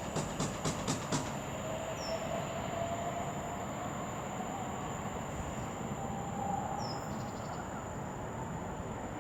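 West Midlands Railway Class 730 electric multiple unit moving away: a quick run of wheel clacks over rail joints in the first second, then a faint steady rumble with a thin whine as it recedes. A small bird chirps twice, faintly.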